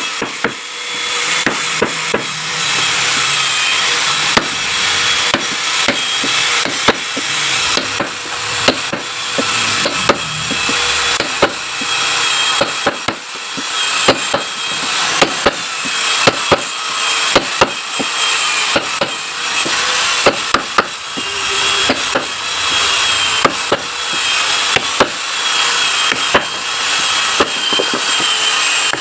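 A flat chisel being struck and driven into wood, cutting a hole: repeated sharp knocks at irregular intervals over a steady hiss.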